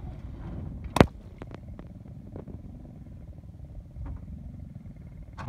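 A water-filled balloon bursts under a slowly rolling car tyre with one sharp pop about a second in. A few faint ticks of water and grit follow, over the low rumble of the car's engine and tyre.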